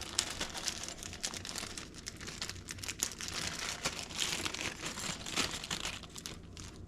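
Plastic packaging crinkling and rustling with irregular small clicks as the contents of a drone's accessory case are handled and unwrapped.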